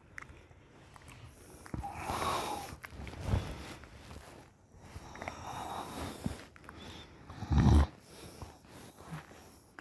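A girl snoring with her mouth open: slow, noisy breaths a few seconds apart, with one loud, short, low snort about three-quarters of the way through.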